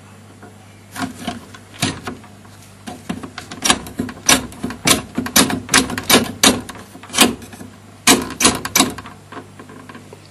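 Electrode selector rollers of an AVO VCM 163 valve tester being clicked round by their levers: a few separate clicks, then a quick, irregular run of sharp clicks that stops about nine seconds in.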